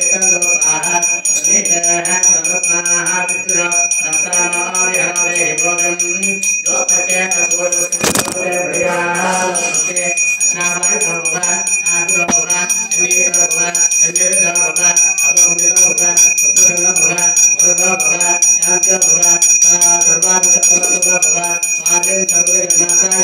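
Priests chanting Vedic mantras in phrases into a microphone while a puja hand bell rings steadily. There is one sharp knock about eight seconds in.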